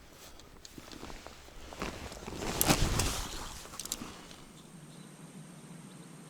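Rustling and clicking of fishing gear being handled, with a louder rustling scrape about two and a half to three seconds in, then quieter.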